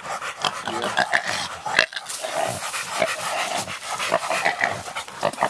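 Hog-hunting catch dog panting hard in quick, rasping breaths: an overheated dog cooling off after working the hog.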